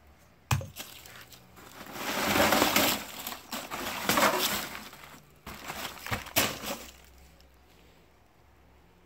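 A sharp knock about half a second in, then rustling and crunching as a hand rummages through dry leaves, rags and a plastic bag, with a few more sharp knocks about six seconds in.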